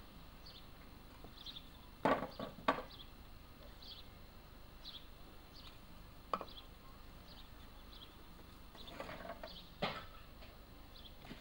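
Wooden blocks knocking and clattering against each other and the wood as they are handled: a quick run of three knocks about two seconds in, a single knock around the middle, and another near the end.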